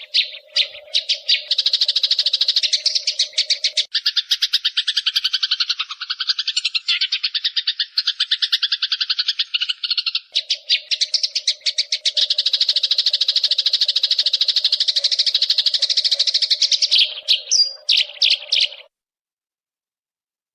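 Eurasian tree sparrow giving a long, rapid chattering call, a fast unbroken string of harsh notes: the agitated chatter of a sparrow fighting. It stops suddenly about a second and a half before the end.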